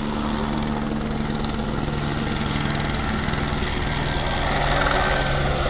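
Fire-fighting helicopter in flight with an underslung water bucket, its rotor chop and turbine drone running steadily, growing slightly louder toward the end as it makes a water-drop run.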